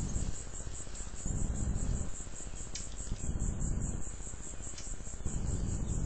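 Insects chirping in a steady, rapid pulse of about five beats a second, over a faint hiss. A low rumble swells and fades roughly every two seconds underneath.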